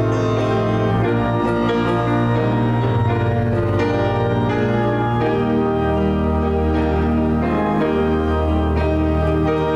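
Organ music: sustained chords over a slowly moving bass, the bass note changing twice.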